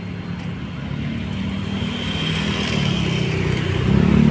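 Engine of a road vehicle coming along the road, growing steadily louder as it draws near.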